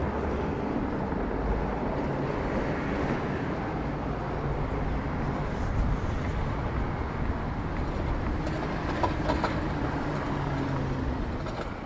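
City street noise with motor traffic running steadily, a low engine hum underneath, and a few short high ticks about nine seconds in.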